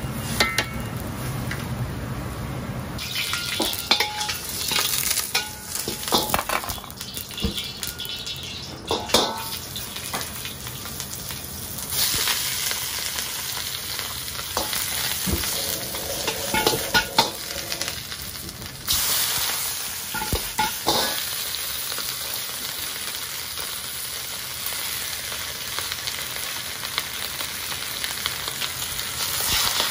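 Napa cabbage and then fried chicken pieces sizzling as they are stir-fried in a hot wok, with scattered clicks and knocks of a ladle on the wok. The sizzle is strongest in the middle. At the start there is a low rumble from the pot of boiling noodles.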